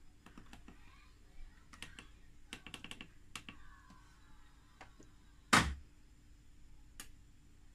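Buttons on a front-loading washing machine's control panel (model K914WM16) pressed in quick succession, short clicks and beeps as the programme, time and spin settings are changed. A single loud sharp knock comes about five and a half seconds in.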